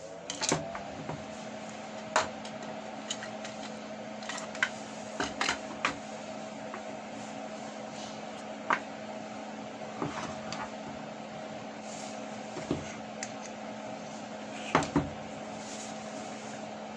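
12-volt cordless drill motor and gearbox winding up in the first half second, then running at a steady speed with an even hum. A dozen or so sharp clicks sound over it at irregular moments.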